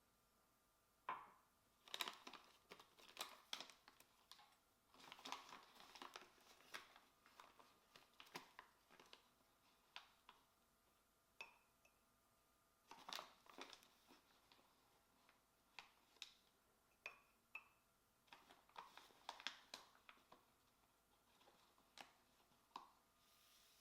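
Close, light handling sounds: an irregular run of soft taps, clicks and brief crinkling rustles, as of small objects or packaging being handled.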